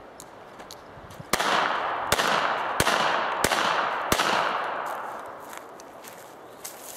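Five shots from a North American Arms mini revolver, fired evenly about two-thirds of a second apart, each followed by a fading echo.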